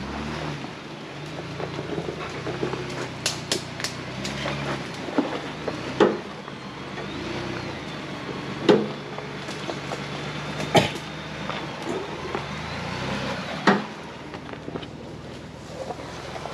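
Off-road 4x4 engine running at low revs as it crawls up a rutted dirt trail, the engine note rising and falling, with several sharp knocks scattered through it.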